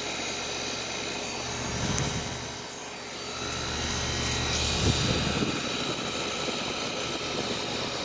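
A 1994 Bryant 2-ton heat pump outdoor unit running in heat mode: the steady hum of its Tecumseh reciprocating compressor under the rush of its two-bladed condenser fan. The sound dips briefly about three seconds in.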